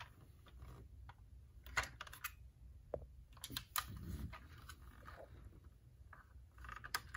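Faint scattered clicks and rubbing as hands turn and grip a diecast Porsche Cayenne model car.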